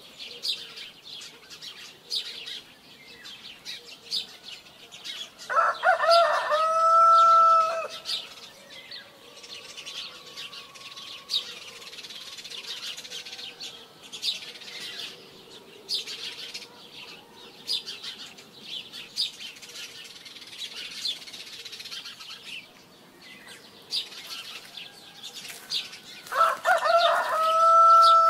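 A rooster crowing twice, a long held crow about six seconds in and another near the end, over the steady chirping of small birds.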